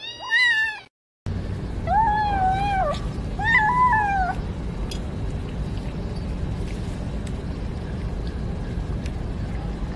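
Kittens mewing: a short meow right at the start, then, after a brief gap, two drawn-out mews of about a second each, level in pitch and falling at the end. A steady low background hum runs under them, with a few faint clicks.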